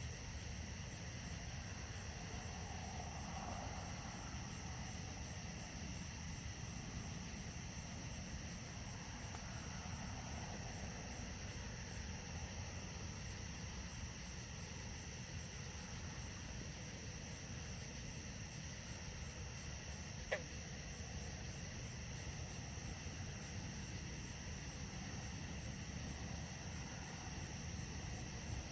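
Steady night chorus of crickets and other insects, over a low, even background noise, with one sharp click about twenty seconds in.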